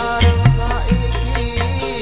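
Live Javanese gamelan band music with a keyboard, and a male singer whose voice is heard near the start. Struck metal keys and drum beats play over steady, shifting bass notes.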